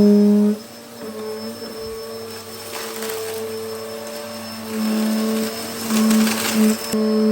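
Hoover Hurricane upright vacuum cleaner running on its intensive setting over carpet, a steady motor hum that drops in loudness after a moment and swells again later, with brief rushes of hiss about three seconds in and near the end.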